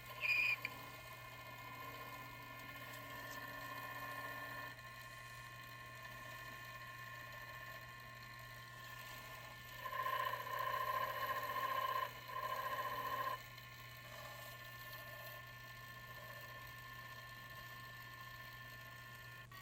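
Wood lathe running steadily, a motor hum with a few steady whining tones. There is a brief sharp sound right at the start, and the whine grows louder for about three seconds around ten seconds in.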